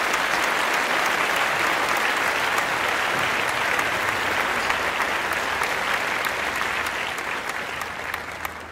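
Applause from many hands clapping, steady and then fading out near the end.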